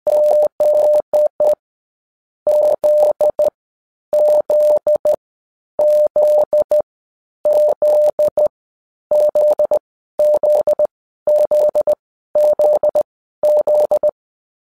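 Morse code sent as electronic beeps of one steady mid pitch, keyed on and off in short dots and longer dashes. The beeps come in about ten letter groups, roughly one a second, with clean silences between them.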